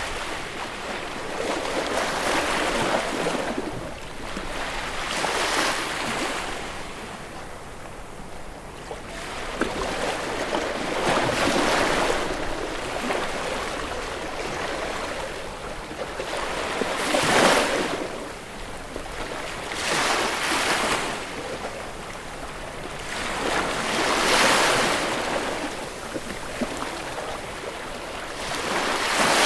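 Ocean waves breaking on a shore: a steady wash of surf that swells into a louder rush every few seconds as each wave breaks, then recedes.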